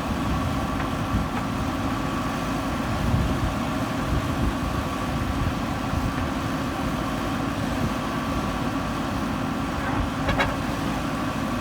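JCB 3DX backhoe loader's diesel engine running steadily. A short knock about ten seconds in.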